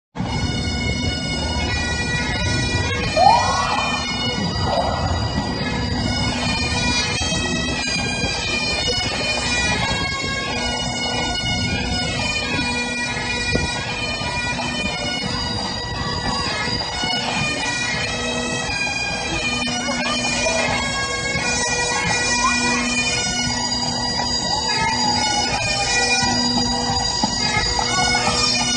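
Bagpipes playing a tune over their steady drone. A short, loud rising sound cuts in about three seconds in.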